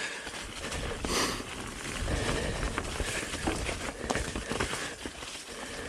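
Transition Spire mountain bike riding down a snowy trail: steady tyre rolling noise with scattered clicks and rattles from the bike over the ground, and a louder rush about a second in.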